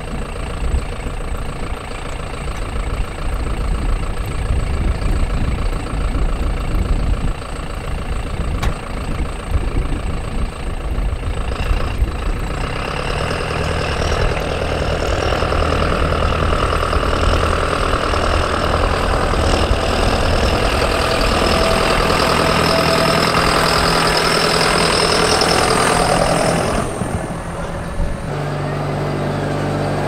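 John Deere loader tractor's diesel engine idling, then throttled up about 12 seconds in and running steadily as the tractor drives off. Near the end the sound changes abruptly to a steadier low engine hum as the tractor idles in the shop doorway.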